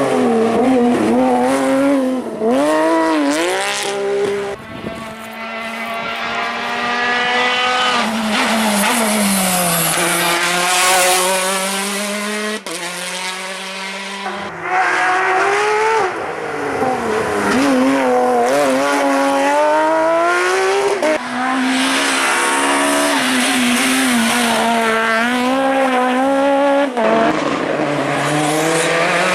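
Rally cars running flat out, engines revving up and dropping back through gear changes as they pass, in a run of short clips that cut suddenly from one car to the next.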